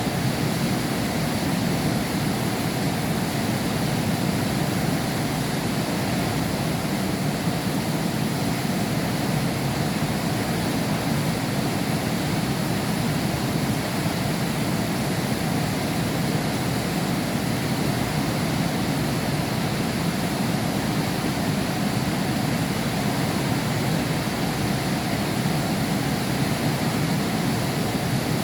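Heavy rain falling steadily, heard from behind window glass: an even, unbroken rushing hiss with no thunder.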